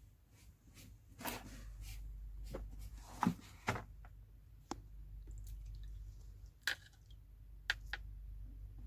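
Paintbrush and painting props handled for a Foley painting sound: scattered light taps and clicks, with a few short scratchy strokes about a second in and around three seconds in. A steady low hum lies underneath.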